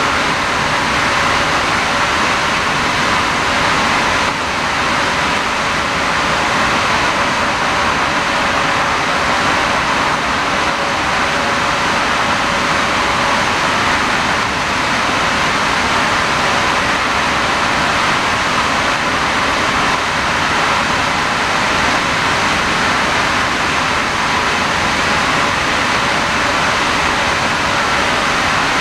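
Loud, steady machinery noise of a process plant, an even hiss-like roar with a faint steady tone underneath and no breaks.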